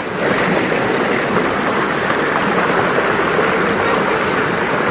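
Rushing river water: a steady, even noise of flowing water.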